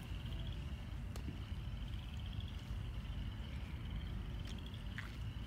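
Outdoor pond-bank ambience: a steady low rumble of wind on the microphone under a continuous high-pitched, evenly pulsed trilling chorus. A few sharp clicks come about a second in and twice near the end.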